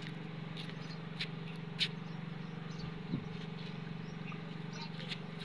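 Empty plastic jerrycans knocking a few times as they are handled on a donkey's pack, over a steady low machine hum.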